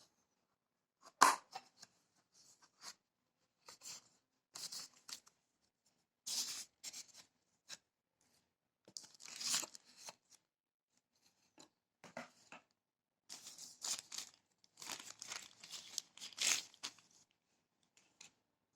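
Smartphone box packaging being torn open and handled: irregular short bursts of tearing and rustling, with a sharp knock about a second in.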